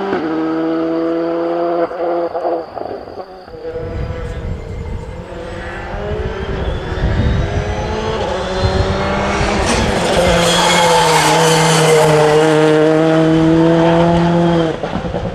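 Rally cars' turbocharged four-cylinder engines running hard at high revs on a tarmac stage, several cars in turn. The pitch climbs through the gears and is held high, loudest near the end. The sound breaks off abruptly a few times where one car's pass gives way to the next.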